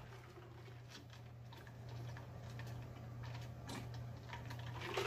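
Faint swallowing and gulping as a man drinks from a glass mug, a few soft clicks of the throat and lips over a steady low hum.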